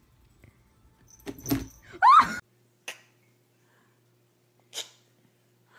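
A brief scuffle, then one short, loud cat meow that rises and falls in pitch about two seconds in; after it, only a faint low hum and two light clicks.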